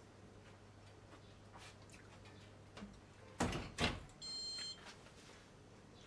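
Built-in oven door swung shut with two knocks in quick succession, followed by a short electronic beep lasting about half a second.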